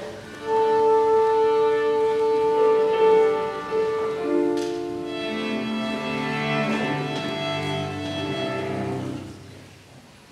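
Choir with piano, cello and double bass accompaniment performing the closing bars of a piece: long held chords that fade out about nine seconds in.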